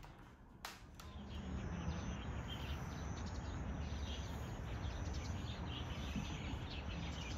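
Outdoor ambience of small birds chirping, with a thin high insect-like tone, over a steady low rumble. A brief click comes just under a second in, and the ambience becomes louder.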